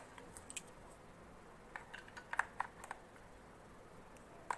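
Scattered small plastic clicks and taps as AA batteries are fitted into the battery compartment of a 1:24 toy RC car, a few near the start and a cluster about two seconds in.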